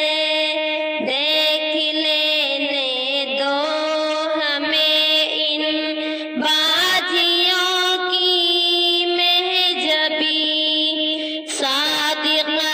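A female voice sings a farewell tarana (Islamic devotional song), holding long notes with ornamented glides between them.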